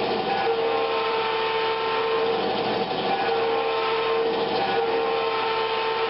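Onboard sound system of an electric GP9 model locomotive playing simulated diesel engine sound, its engine sound raised to match the running speed. Steady humming tones fade out and come back every second or so.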